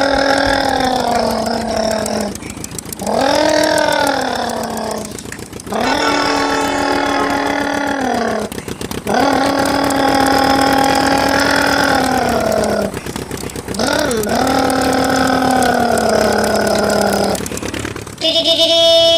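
A person imitating a vehicle engine with their voice: a run of long, drawn-out 'vroom' hums with short breaths between them, each rising at the start and falling away at the end. A brief, higher, buzzier sound comes near the end.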